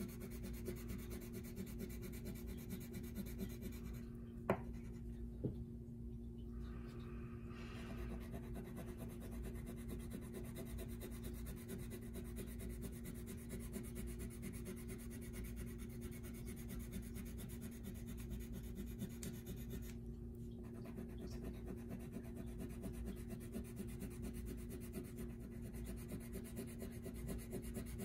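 Wax crayon scribbling on paper, rapid back-and-forth strokes as a large area is filled in with light pressure. Two light taps about four and a half and five and a half seconds in.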